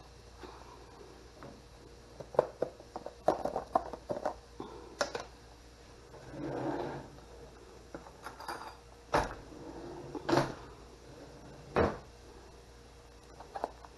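Dishes and a plastic food container clicking and knocking as they are handled and set down on a kitchen countertop, with three sharper knocks in the second half.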